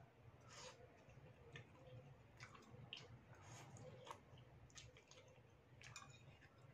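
Faint sounds of eating noodle soup: noodles slurped in and chewed, with scattered light clicks.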